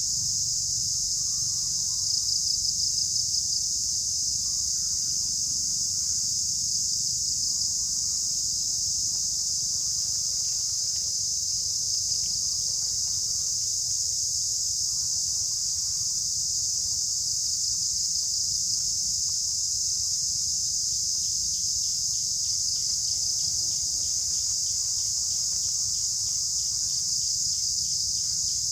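Steady, high-pitched insect chorus, with a rapid pulsing coming through at times, mostly near the end.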